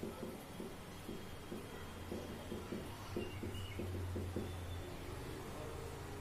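Marker pen writing on a whiteboard in short, quick strokes, over a steady low hum.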